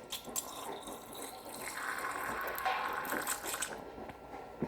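Faint steady hiss of compressed air escaping from an air compressor's line, swelling slightly in the middle.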